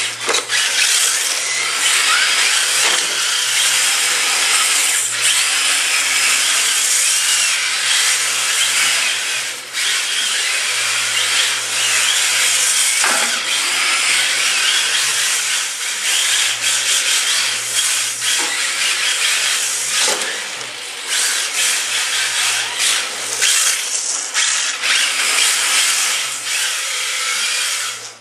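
Electric motors and gear drivetrains of two Tamiya TT-01E RC drift cars, each with a 20-turn brushed motor, whining as they rev up and down continuously, with a few short knocks.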